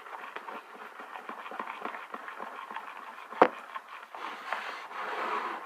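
Homemade slime being stirred in a bowl: quick, irregular wet clicks and crackles of the sticky, not-yet-set mixture, with one sharp knock about three and a half seconds in.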